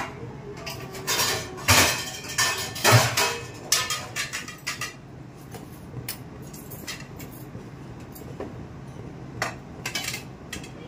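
Dishes and metal cutlery clattering and clinking: a quick run of knocks and clinks over the first few seconds, then a couple of single clinks near the end, over a steady low hum.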